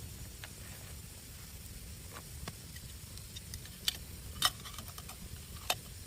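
A few sharp pops and crackles over a low steady rumble. The loudest three come in the second half, about a second apart.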